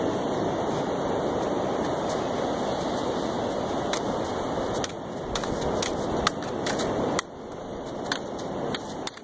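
Red plastic toy lightsabers clacking together in an irregular string of about ten sharp knocks, starting about four seconds in. Under them is a steady rush of wind and surf, which drops away sharply about seven seconds in.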